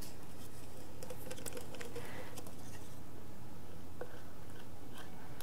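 Quiet steady room hum with faint scattered light clicks and taps as a bottle of corn syrup is handled and poured into a glass mixing bowl.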